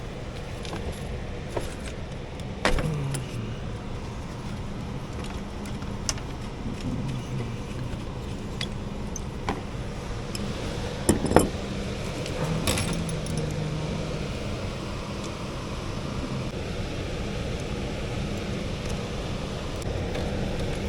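Metal hand tools clinking and knocking against the air handler's fittings during a TXV replacement. There are scattered sharp clicks, a louder cluster about halfway through, over a steady background drone.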